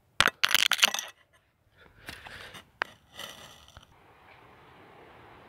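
Close handling noise: loud crackling and rustling in three bursts over the first four seconds, with a sharp click between the second and third, then a faint steady hiss.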